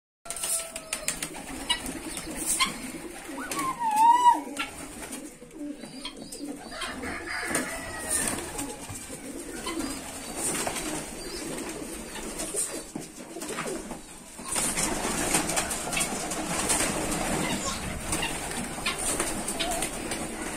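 Domestic pigeons cooing in a small concrete loft, with scattered clicks and knocks throughout and a louder, busier stretch over the last six seconds.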